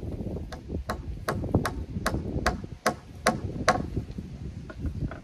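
Hand hammer striking at a timber beam overhead: about nine sharp, ringing blows in a steady rhythm of roughly two and a half a second, stopping a little before four seconds in.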